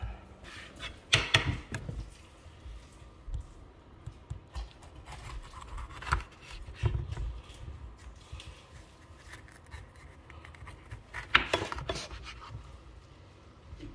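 Kitchen knife slicing a red bell pepper on a wooden cutting board: intermittent cuts and light knocks of the blade on the board, with louder clusters about a second in and again near the end.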